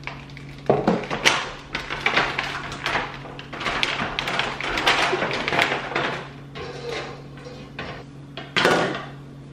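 Clear plastic packaging crinkling and clicking as pillar candles are pulled out of it and a cardboard box is handled, with sharper knocks about a second in and near the end.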